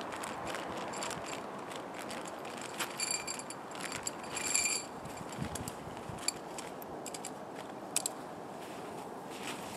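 Gloved hands working at a nylon tent cover: fabric rustling with scattered clicks and taps, and two brief high ringing sounds a few seconds in.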